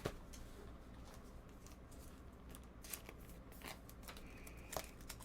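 Faint handling of trading cards and packs: a few soft clicks and snips scattered across a few seconds.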